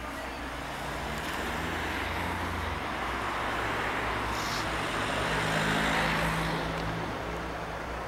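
Diesel engine of an ALn 772 railcar running as the railcar rolls slowly past close by, with a steady low engine drone. The sound swells to its loudest about six seconds in and then eases.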